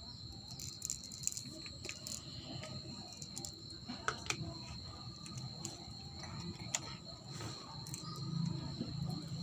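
Foam beads being added to clear slime and worked in by hand: faint, scattered small clicks and crackles. A steady high-pitched whine runs underneath.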